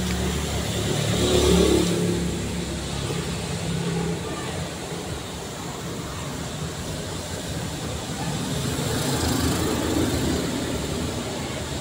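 Street traffic noise: a motor vehicle passes close by, loudest about a second and a half in, then steady road noise with another vehicle swelling around nine to ten seconds in.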